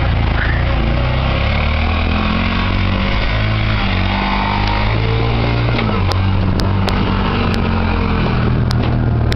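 Mototaxi (auto-rickshaw) engine running close by at low speed, its pitch rising and falling as the throttle changes, with a few sharp clicks or rattles in the second half.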